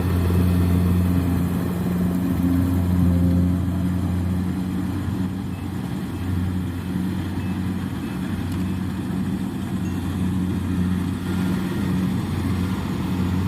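Kubota rice combine harvester's diesel engine running at a steady speed, a continuous low hum.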